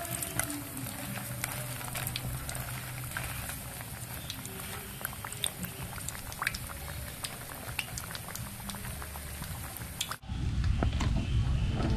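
Hot oil sizzling and crackling in a wok as tofu and batter-fried banana-blossom strips deep-fry. About ten seconds in, it cuts off suddenly and music comes in.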